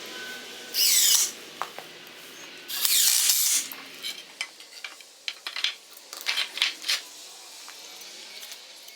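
Two short scraping, rustling bursts, then a run of light clicks and knocks: handling noise from gear being moved and set down.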